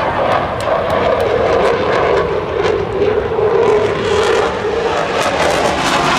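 Eurofighter Typhoon's twin jet engines making a loud, steady roar during a flying display, with a pitch that drifts slightly lower.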